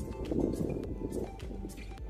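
Background music with steady held notes and a quick clicking beat.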